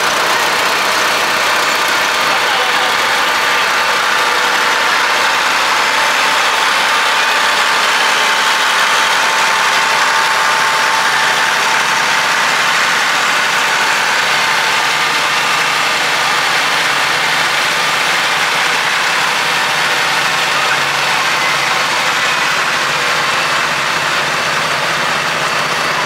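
Antique farm tractor engines running steadily at low speed as tractors pass in a line, with crowd chatter underneath.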